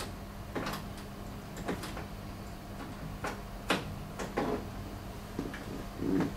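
Several irregular light clicks and knocks as gloved hands handle wiring, connectors and the sheet-metal chassis inside a Kyocera KM-2550 photocopier.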